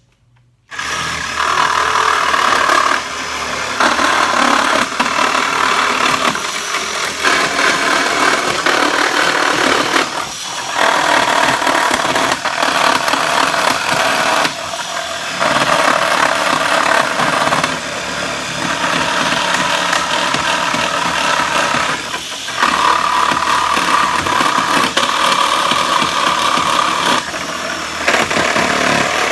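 Electric power saw starts about a second in and runs almost continuously as it cuts between pallet boards, easing off briefly every few seconds.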